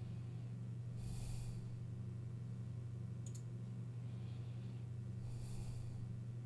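A steady low electrical hum under two breaths out through the nose, one about a second in and another near the end, with a single sharp mouse click in between.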